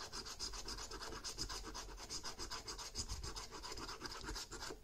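A coin scratching the silver coating off a paper scratchcard in quick back-and-forth strokes, about eight a second, stopping near the end.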